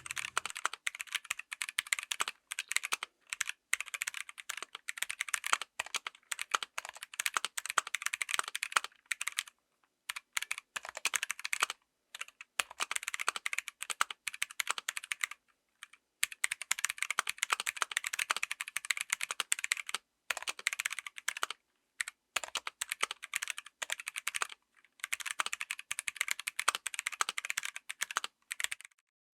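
Typing on a mechanical keyboard with stock, unlubed Kailh BOX Crystal Royal tactile switches: quick runs of key clacks broken by short pauses.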